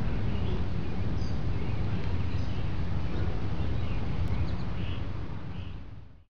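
Outdoor ambience: wind rumbling on the microphone, with birds chirping in the background, fading out near the end.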